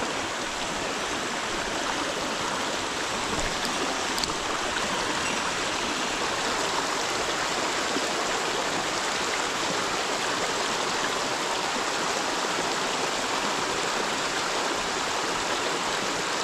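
Small rocky mountain stream rushing over a low bedrock ledge into a pool: a steady, even rush of water.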